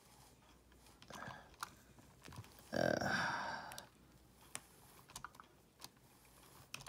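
Faint scattered clicks and taps from hands working an RC car's front wheel as it is turned and swabbed with tire grip liquid. One louder noise lasting about a second comes about three seconds in.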